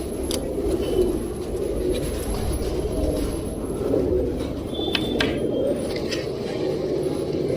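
A flock of domestic pigeons cooing together in a steady low mass of overlapping coos, with a few short sharp clicks.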